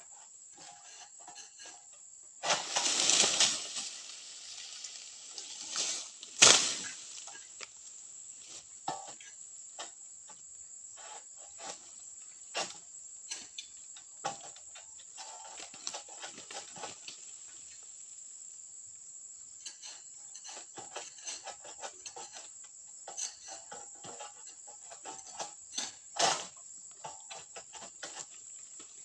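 Oil palm fronds being pruned with a pole-mounted cutter: repeated sharp cutting knocks, a loud rustling crash about three seconds in as a frond comes down through the leaves, and a sharp crack a few seconds later. A steady high-pitched insect drone runs underneath.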